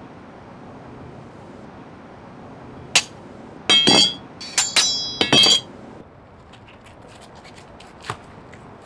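Metal hand weapons dropped to the ground one after another. A single clank comes about three seconds in, then a quick run of clanks and ringing clinks over the next two seconds.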